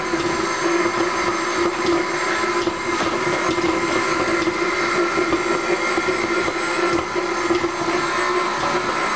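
An electric kitchen mixing appliance running steadily: a constant motor hum with a whirring rush over it.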